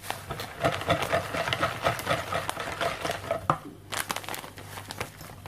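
Wire whisk stirring a wet seed mixture in a plastic mixing bowl: quick, rapid scraping and clicking that pauses briefly about three and a half seconds in, then starts again.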